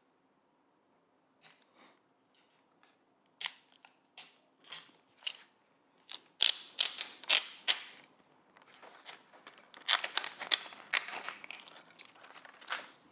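Thin plastic screen-protector film and its backing layers being handled and peeled, giving scattered sharp clicks and crackles that come thicker about six seconds in and again from about ten seconds.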